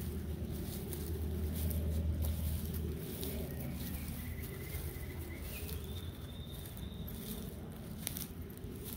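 Light steps and rustling through grass and fallen leaves, with a low rumble in the first few seconds. A thin high whistle comes in about a third of the way through and steps up in pitch before stopping.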